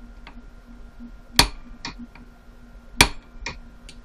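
Two hammer blows on a hand impact driver, about a second and a half apart, each followed by a lighter click, breaking loose stubborn screws on the jet cover plate of a 38 mm Mikuni watercraft carburetor.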